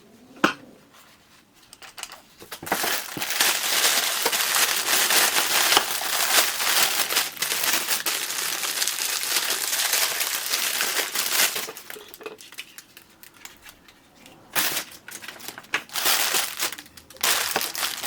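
Packaging being handled and crinkling: a sharp click about half a second in, a long stretch of rustling crinkle, then shorter bursts near the end.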